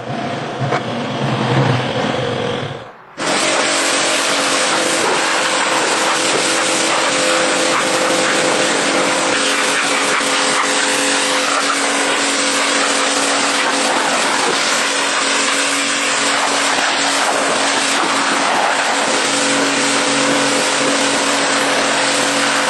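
Moskvich 401's four-cylinder side-valve engine running on a test drive after its revival. The car is driving at a steady pace, with road and wind noise, from a sudden change about three seconds in.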